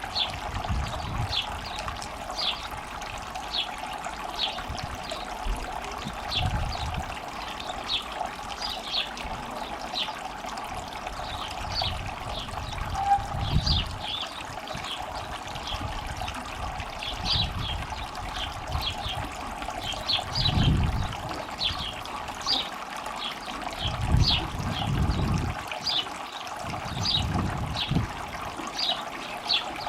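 Small garden water feature trickling steadily, water spilling over its little waterfall into the basin.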